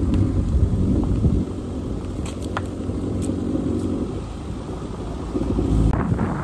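Hyundai i10 hatchback on the move, a low engine and road rumble heard from the open driver's window.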